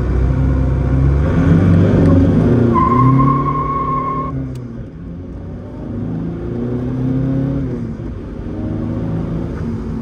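Car engine accelerating hard, its pitch climbing, then dropping away about four and a half seconds in and climbing again more quietly. A steady high electronic tone sounds for about a second and a half, about three seconds in.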